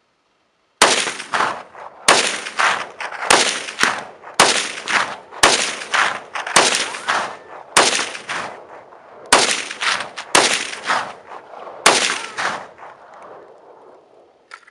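Chinese Norinco SKS semi-automatic rifle, chambered in 7.62×39 mm, firing about eleven shots at an uneven pace of roughly one shot a second or slower. Each sharp report is followed by a ringing echo, and the last echo fades out near the end.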